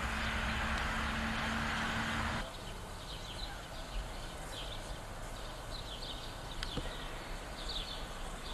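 A steady hum with a faint held tone cuts off suddenly about two and a half seconds in. Birds then chirp in the trees for the rest of the time: many short, high calls that sweep downward, repeated irregularly.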